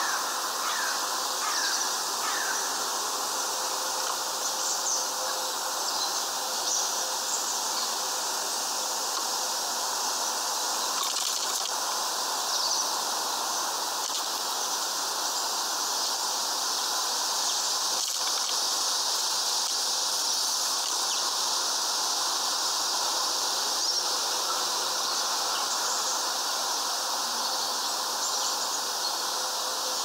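Steady outdoor background hiss with a few short, faint bird chirps, most of them in the first few seconds.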